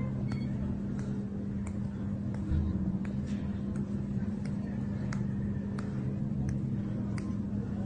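A steady low hum, with faint sharp snaps about twice a second as fingers pinch and pull the skin of the chest and neck in a jiu sha pinching treatment.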